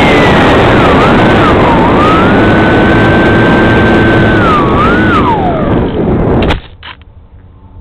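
Model airplane's motor and propeller heard from a camera on board, a whining tone rising and falling with the throttle over heavy wind rush. It cuts off suddenly about six and a half seconds in with a few knocks as the plane comes down in the grass.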